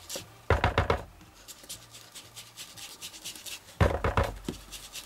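Ink blending tool's foam pad rubbed and dabbed against the edge of a paper tag: two short bursts of quick scratchy strokes, one near the start and one about four seconds in, with faint rubbing between.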